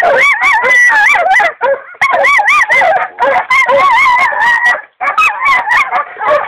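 Hunting hounds baying and yelping in a string of wavering, drawn-out cries that overlap one another, with a brief break about five seconds in.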